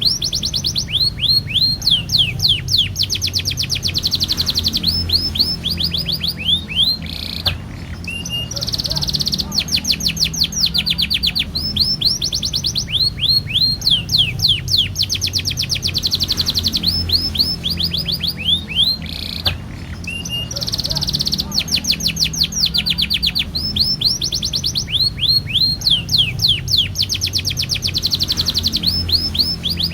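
Domestic canary singing a long, continuous song of fast trills and rapidly repeated rolled notes, with short breaks about seven and nineteen seconds in. A low, steady background rumble runs underneath.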